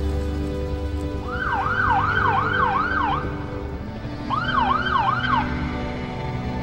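A yelping siren: quick rising-and-falling wails, about three a second, in two bursts, the first about a second in and the second shorter one past the middle, over background music.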